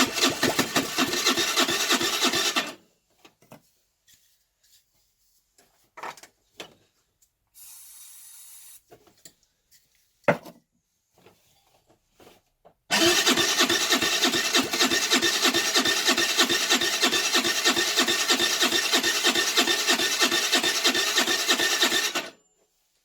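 Electric starter of a Baotian Tanco 50cc four-stroke scooter cranking the engine in a steady pulsing rhythm, briefly and then again for about nine seconds, without it firing. The engine is flooding: the plug keeps getting wet after a few cranks. A short soft hiss and a few small clicks fall in the pause between the two cranks.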